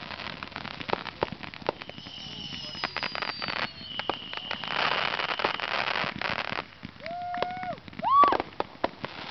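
Aerial fireworks going off: a string of sharp bangs and pops, high whistles about two seconds in, and a dense crackling burst through the middle. Near the end come a couple of rising-and-falling whoops, the second one loud.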